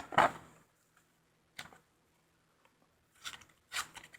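A few short clicks and taps of a small cardboard box and its plastic packaging being handled and opened: one at the start, one about a second and a half in, and a cluster near the end.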